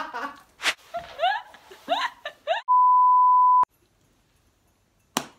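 A steady single-pitch bleep tone of about a second, the kind edited in to censor a word, cutting off sharply. Before it come short rising squeals of laughter, and near the end a sharp click.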